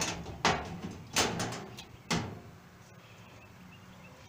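A handful of sharp knocks and clatters from hands working at an old Coleman 426D camp stove and its burner grates, spread over about two seconds.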